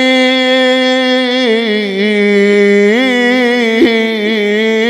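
A male reciter chanting a Shia nai lament, holding one long sung vowel without words. The note wavers in ornamented turns and steps down in pitch about a second and a half in, then turns again near three seconds.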